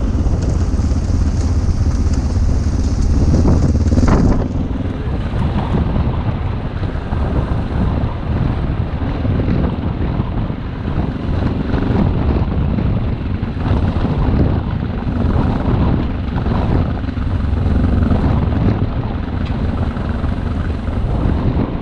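Adventure motorcycle running while riding off-road, engine noise mixed with wind buffeting the microphone. A high hiss in the wind noise drops out about four seconds in.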